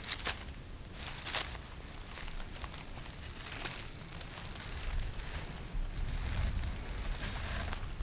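Dry leaf litter rustling and crackling as a hand and a machete blade push through it, with a couple of sharper crackles about a second in.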